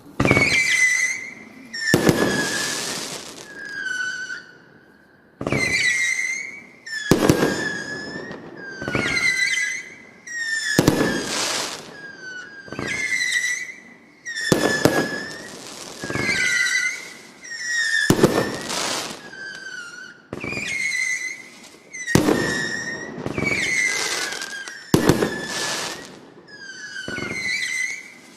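Stellato FEE7338 'Feeria' consumer fireworks battery firing shot after shot, about one every one and a half to two seconds. Each shot is a sharp bang followed by a short falling whistle and crackle.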